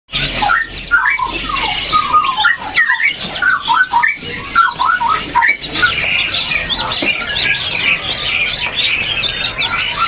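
Caged songbirds singing: clear whistled notes that slide up and down, joined about six seconds in by dense, high chattering from many birds at once.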